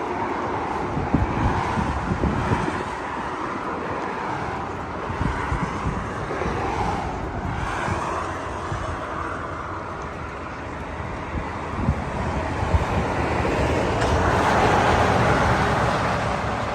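Road traffic: vehicles passing, a steady rush that swells and fades twice, about halfway through and again near the end.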